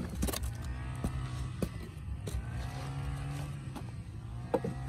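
A motor engine running steadily in the background as a low hum, its pitch wavering slightly in the middle. A few light clicks and crackles of plastic rubbish sound as a stick pokes through it.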